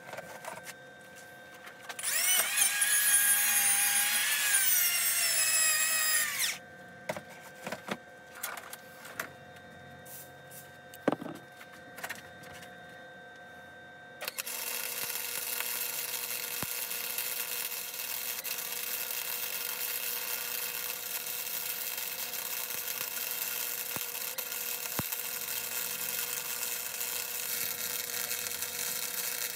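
A hand power tool runs for about four seconds, climbing in pitch, followed by scattered knocks and handling clatter. Then a wire-feed welder's arc runs steadily for about fifteen seconds as the steel fork tubes are welded.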